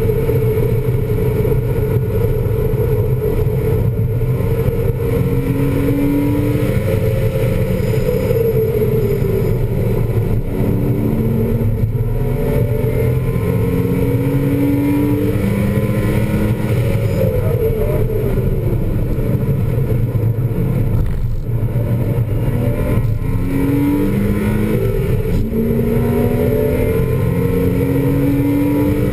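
2000 Porsche Boxster S's 3.2-litre flat-six engine heard from inside the cabin while driven hard on track. It climbs in pitch through several upshifts, drops away a little past halfway for a corner, then pulls up through the gears again in quick steps near the end, over steady road and wind noise.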